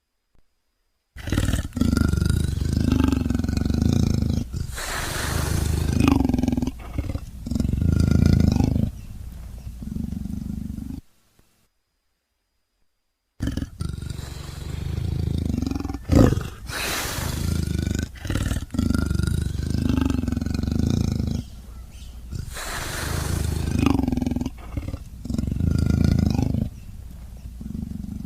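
Leopard roaring and growling in a long series of rough calls. It breaks off for about two seconds of silence near the middle, then starts again.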